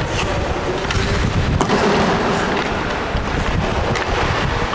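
Ice hockey rink noise: a steady loud din with a few sharp knocks, one clear one about a second and a half in, typical of sticks and puck striking during goalie play.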